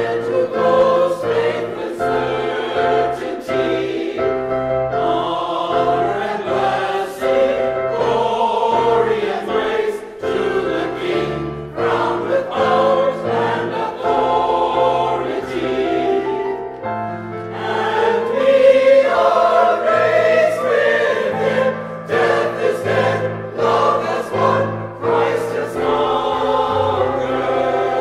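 A choir singing sacred music, with sustained notes changing chord by chord over a moving bass line.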